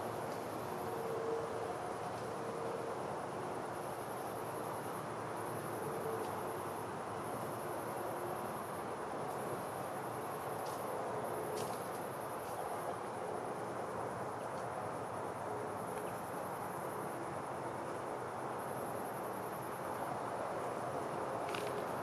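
Insects trilling at a very high pitch in on-and-off bouts of a second or two, over a steady hush of river water.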